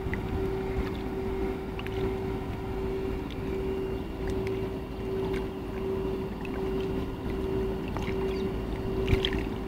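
A steady motor drone holding one constant pitch, over a low rumble, with a few faint clicks near the end.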